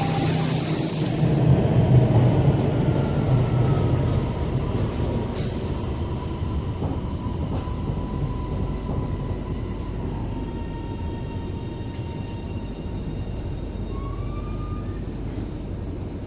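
Metro train running, heard inside the carriage: a steady rumble of wheels on rails with a faint electric motor whine that rises briefly near the end. It grows gradually quieter as the train slows.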